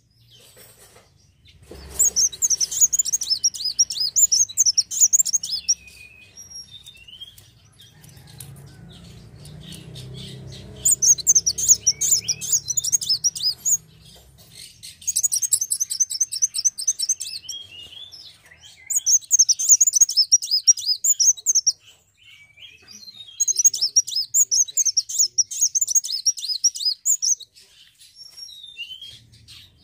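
Sunbird (kolibri wulung) song: bouts of rapid, high-pitched twittering trills, each a few seconds long, five in all, separated by short pauses with scattered single chirps.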